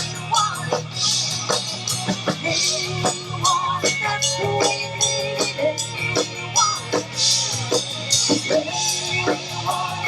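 Live rock band playing with drum kit and guitar, driven by a steady beat.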